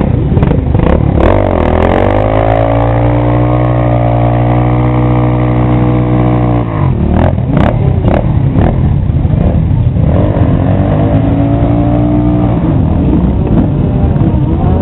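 Motorcycle engine revved up over about two seconds and held at high revs for a burnout, then dropped off about halfway through. After a few sharp cracks it is held high again for a couple of seconds.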